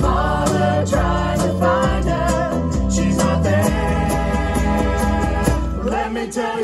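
Ukulele band playing a song through a PA: strummed ukuleles, a bass line and voices singing. The bass drops out about six seconds in.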